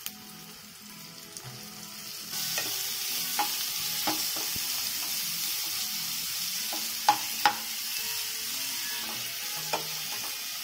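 Chopped small onions frying in hot oil in a nonstick kadai, with a steady sizzle that grows louder about two seconds in. A spatula stirs them, knocking against the pan a few times, with two sharp knocks in quick succession about seven seconds in.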